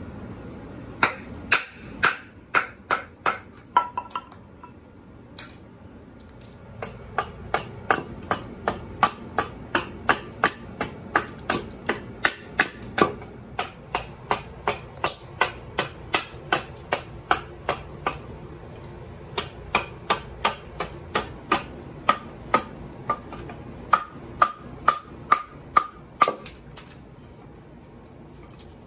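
Husqvarna carpenter's axe chopping a scrap-pine spoon blank stood on a wooden log: a short run of sharp chops, a pause of a few seconds, then a long steady run at about two chops a second that stops shortly before the end.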